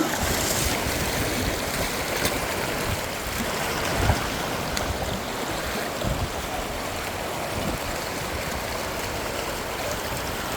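Stream water rushing steadily, an even hiss with irregular low rumbles underneath.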